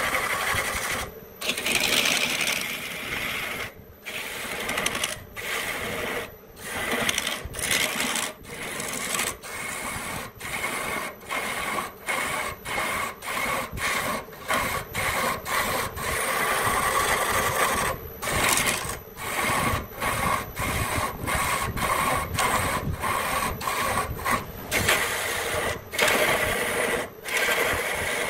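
Wood being worked with a tool in quick repeated strokes: a scraping, rasping sound broken by short gaps, about one to two strokes a second.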